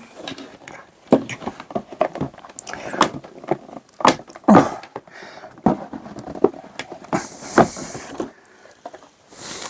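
Hands opening a cardboard board-game box and handling the packaging inside: irregular rustling, scraping and light knocks, with a longer sliding scrape near the end.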